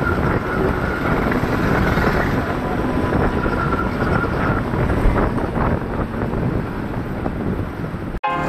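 Wind buffeting the microphone while riding through street traffic, a steady rumbling noise with a faint whine now and then. The sound cuts out for an instant near the end.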